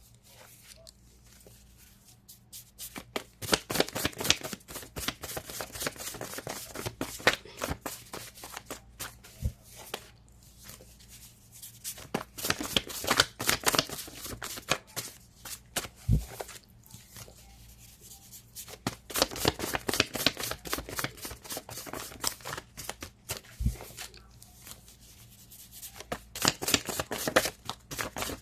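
A tarot deck being shuffled by hand: bouts of rapid card flicks and riffles, several times over with short pauses between.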